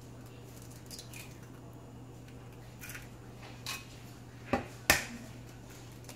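An egg being cracked: two sharp taps of the shell a little over four and a half seconds in, after a few faint clicks of handling, over a steady low hum.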